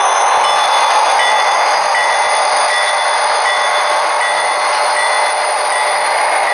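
Model diesel locomotives in Southern Railway paint rolling past close by: a steady whir of motors and gearing with wheels running on the rails, under a faint high whine and a short chirp that repeats about every three-quarters of a second.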